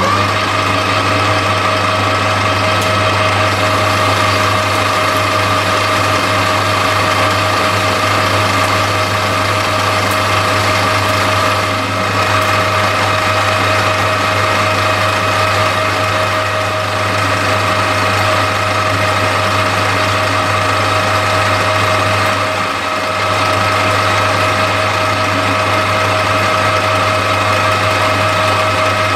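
Metal lathe running steadily with a constant hum and whine, taking a turning cut along a slender steel connecting rod held between the chuck and a tailstock centre.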